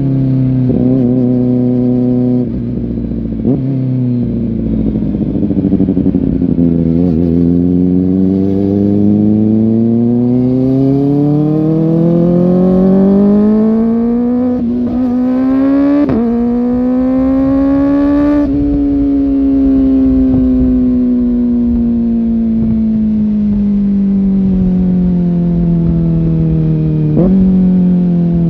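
Kawasaki ZX-4R's inline-four engine under way, its pitch climbing as it accelerates and stepping down abruptly at several gear changes. In the second half it falls slowly for a long stretch as the bike slows.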